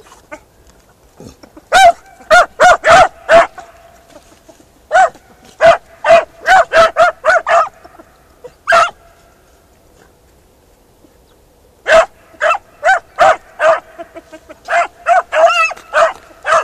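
Beagle harriers barking in runs of short, high-pitched yelps, several a second, with pauses between runs and the longest run in the last few seconds.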